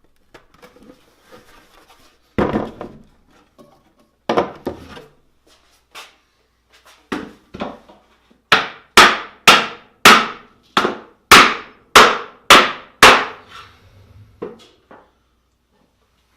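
Hammer driving nails into the wooden pieces of a beehive bottom board: a few spaced taps, then a run of about nine hard blows at roughly two a second, then two light taps near the end.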